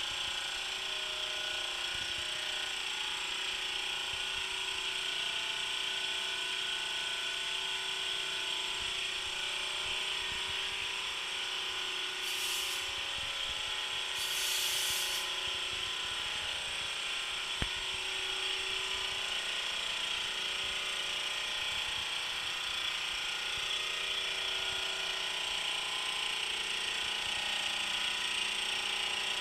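SL-310 oil-free dental air compressor running steadily with a mechanical hum and hiss. About twelve and again about fourteen seconds in, two short sharp hisses as the auto tank drain valve is opened with its manual button, followed a few seconds later by a single click.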